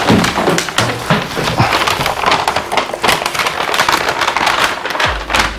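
Plastic pre-liner sheeting crinkling and rustling in a continuous dense crackle as it is handled and drawn over a resin-soaked liner.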